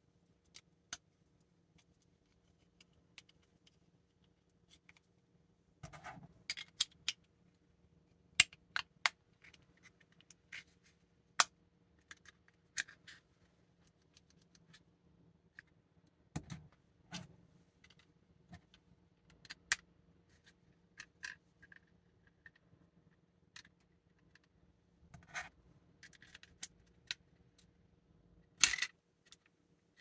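3D-printed plastic crossbow parts being handled and snapped together: irregular sharp plastic clicks and brief rubbing and scraping, with a few louder snaps, the loudest near the end.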